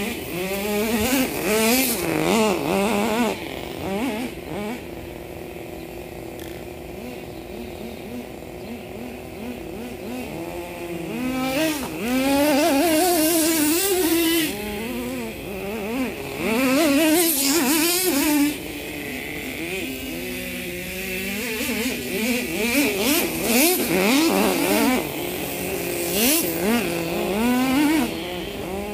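Nitro RC truck's small glow-fuel engine running and revving up and down again and again as it is driven, its pitch rising and falling. It is loud in several stretches, with quieter running between them.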